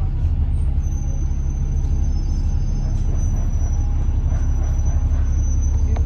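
A moving bus heard from inside its cabin: its engine and running gear make a steady low rumble. A faint, high, steady whine joins it about a second in.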